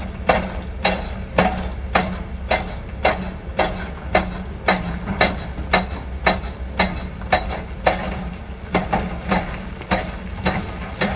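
Heavy construction machine striking again and again at an even pace, about two knocks a second, over its steadily running engine.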